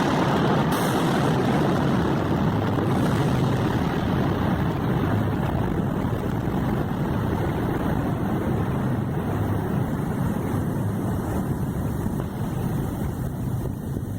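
An engine or machine running steadily under a constant rushing noise.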